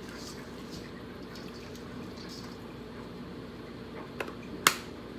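Soft handling of raw whole chickens and light shaking of a spice shaker over a steady low hum, then a small click and a sharp plastic snap near the end as the shaker's flip-top lid is shut.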